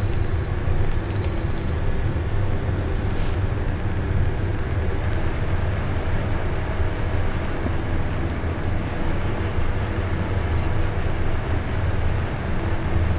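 Split air conditioner running: a steady hum with an even rushing noise. Short high-pitched beeps sound at the start, about ten seconds in, and again at the end.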